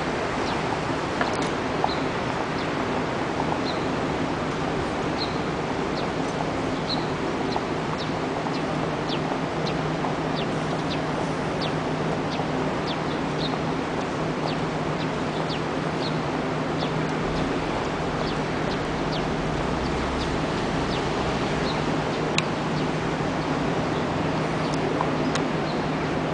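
Steady city street ambience: a constant wash of traffic noise with a low hum under it, and many short, high, falling chirps repeating throughout.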